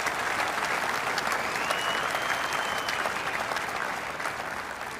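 Large audience applauding, dying down slightly toward the end.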